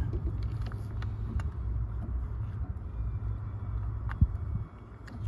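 Steady low rumble with one sharp click about four seconds in, during a test of a door lock actuator motor that does not run.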